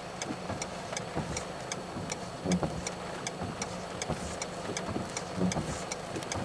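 A vehicle engine idling with a low, steady hum under a regular ticking, about three ticks a second, with two soft low thumps.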